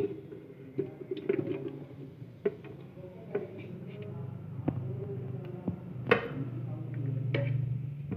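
Star fruit slices being scooped by hand from a plastic bowl and dropped into a steel mixer jar: scattered knocks and taps of fruit and fingers against the containers, the sharpest about six seconds in, over a steady low hum.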